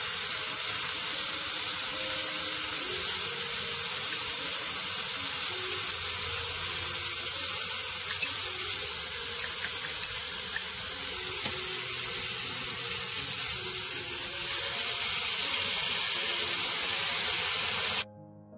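Tofu slices sizzling steadily in hot oil in a frying pan under a chili-soy seasoning sauce. The sizzle gets louder a few seconds before the end, as liquid is drizzled around the edges of the pan, then cuts off suddenly.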